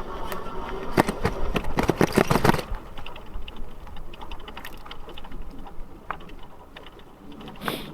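Electric tricycle rattling and clicking as it rides over rough ground: a dense run of loud knocks and rattles for the first three seconds, then fainter, quicker ticking.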